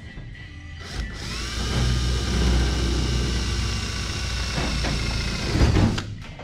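Cordless drill spinning up about a second in and running at a steady speed for about five seconds as it drills into the race car's deck panel at the fuel lid opening, with a few knocks just before it stops.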